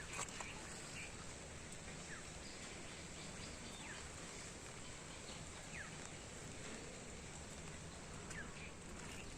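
Rural outdoor ambience: a steady soft hiss with a few faint, short downward-gliding bird calls every couple of seconds.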